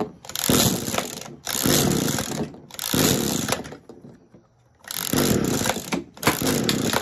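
Echo SRM-210 string trimmer's small two-stroke engine being pull-started on choke: five quick yanks of the recoil starter rope, each about a second of whirring cranking, with a short pause after the third. The engine does not catch; it is hard to start even with a new carburetor fitted.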